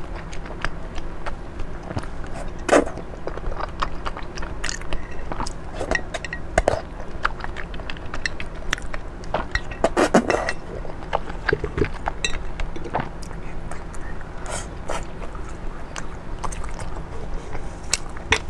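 Close-miked eating: chewing and slurping thick strips of food in chili oil, with many short clicks of chopsticks and mouth sounds. There is a longer slurp about ten seconds in, when the bowl is at the lips.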